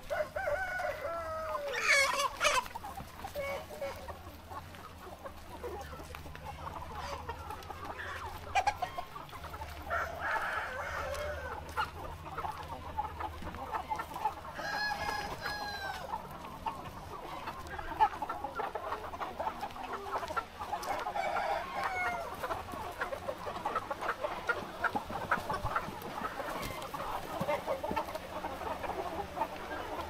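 A large flock of chickens clucking continuously, with roosters crowing now and then, loudest about two seconds in and again about halfway through.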